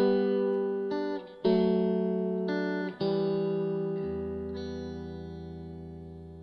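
Guitar music played back through a pair of modified Kenwood LS-SV3 bookshelf speakers fitted with concrete horn tweeters and plaster-damped bracing. A few struck chords are followed by one long chord that rings and slowly fades, and a low note joins about four seconds in.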